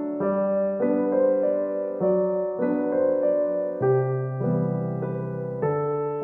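Background music: a gentle piano melody with chords, a new note or chord about every half second.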